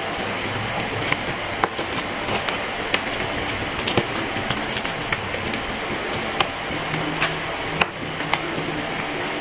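Plastic spoons and forks clicking and scraping against cardboard meal boxes and plastic cups during a meal, a string of irregular sharp clicks over a steady background hum.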